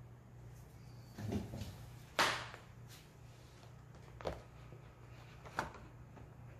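A few knocks and clicks of things being handled: a muffled shuffle, then one sharp knock about two seconds in, the loudest sound, and two lighter clicks later, over a faint steady low hum.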